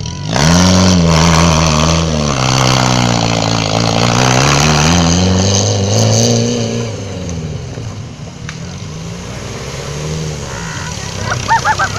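Off-road vehicle engine revving hard under load, its pitch rising and falling repeatedly, then settling to a quieter, lower run about seven seconds in.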